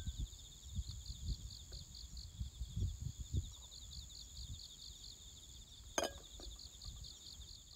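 Crickets chirping in an even rhythm of about five chirps a second, with a steady higher insect trill, over a low wind rumble. A single sharp clink of glassware about six seconds in.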